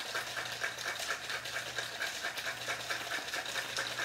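Ice rattling and crashing inside a stainless steel cobbler cocktail shaker, shaken hard in a fast, even rhythm to chill and dilute a mixed drink.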